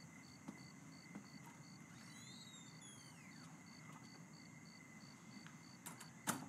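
Faint night ambience of a cricket chirping evenly, nearly four chirps a second, over a steady high insect tone. About two seconds in there is a falling whistle-like call, and near the end a sharp click.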